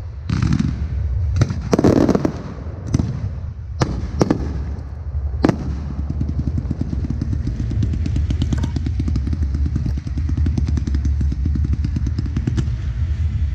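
Aerial fireworks going off: heavy booms and several sharp bangs in the first few seconds, then from about six seconds in a dense, rapid crackling over a steady low rumble.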